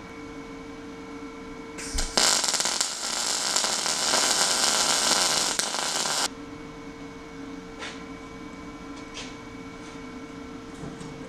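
Lincoln Power MIG 210 MP MIG welder's arc crackling steadily for about four seconds as a weld pass is run on steel exhaust tubing. The arc strikes about two seconds in and cuts off abruptly, with a steady hum before and after.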